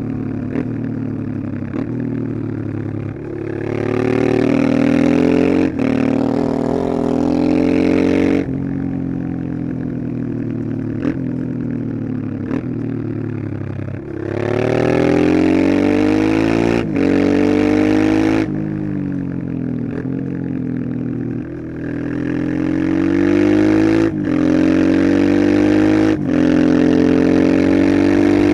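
1989 Honda Transalp XL600V's 583 cc V-twin engine running, pitch rising three times under acceleration with short sharp breaks in the sound, and settling to a lower steady note in between.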